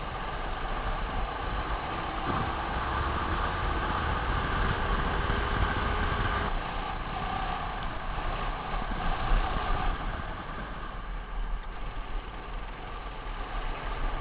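Racing kart engine running at speed, heard from an onboard camera along with rushing wind and tyre noise. The engine note climbs through the first few seconds, then eases off about six and a half seconds in before picking up again.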